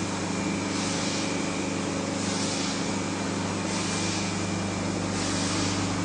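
Injection moulding machine running: a steady hydraulic hum with a hiss that swells and fades about every one and a half seconds.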